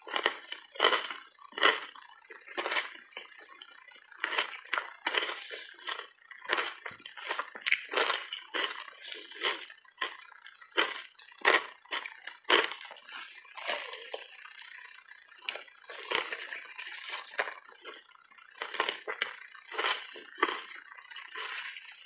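Close-miked crunching and wet chewing of reshaped ice coated thickly in matcha tea and milk powder: irregular sharp crunches as the ice is bitten and broken, with wet, slushy mouth sounds between them.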